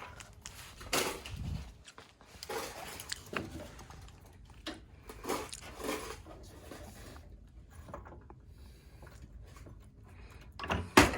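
Scattered clanks, knocks and rattles of tools and parts being handled, with one loud sharp bang near the end.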